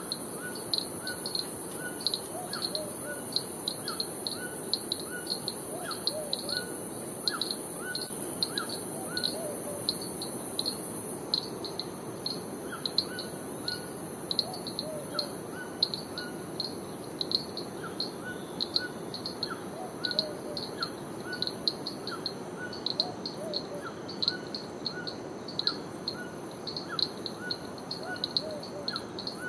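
Rainforest ambience of birds and insects: a rapid run of short high chirps, about three a second, over a steady high insect hiss, with scattered lower bird calls.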